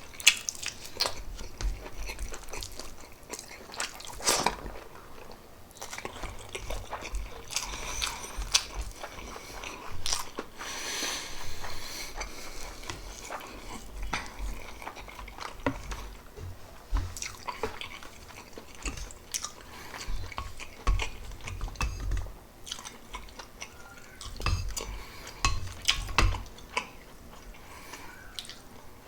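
Close-miked chewing and biting of pork adobo with rice: irregular wet mouth sounds and sharp clicks, with no talking.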